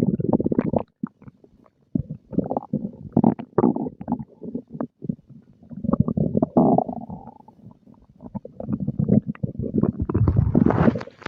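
A human stomach growling and gurgling in irregular bouts, with bubbly, crackling gurgles and short pauses between them, as it digests breakfast.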